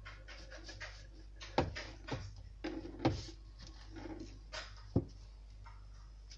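Kitchen knife cutting into an avocado held over a plastic cutting board: a run of small scrapes and clicks, with three sharper knocks about a second and a half in, three seconds in and five seconds in. A steady low hum runs underneath.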